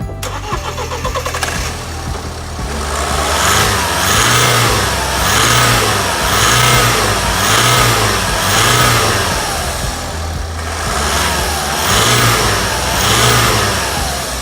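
Toyota Avensis 1.6 D-4D (1WW) four-cylinder diesel engine running and being revved up and down again and again, roughly once a second.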